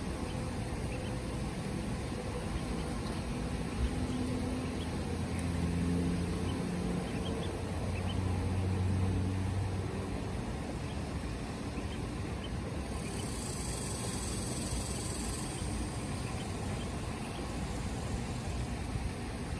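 Outdoor ambience with a steady low mechanical hum that swells for a few seconds in the first half, as of a vehicle passing at a distance. A brief high hiss rises and fades in the second half.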